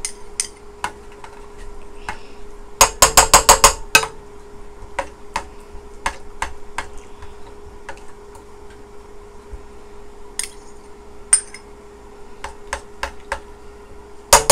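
A spoon clinking and scraping against a small ceramic bowl over a stainless steel pot as leftover sauce is knocked into a stew. A little under three seconds in comes a quick run of about eight sharp taps, and lighter single clinks are scattered through the rest, over a steady faint hum.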